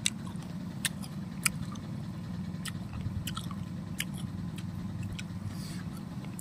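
Someone chewing crunchy fried snacks close to the microphone: scattered sharp crunches at uneven intervals over a steady low background hum.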